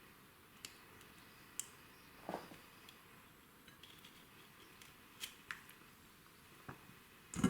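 Scattered light clicks and knocks of handling as chicken wings and potato pieces are pushed onto a tandoor skewer, with a louder knock near the end.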